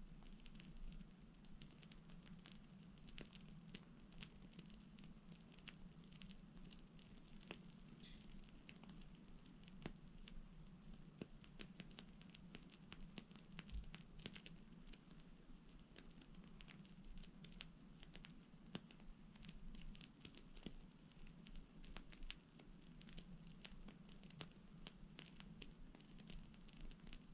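Faint, irregular crackling of a burning bonfire-style candle: small clicks and pops scattered throughout, over a steady low hum.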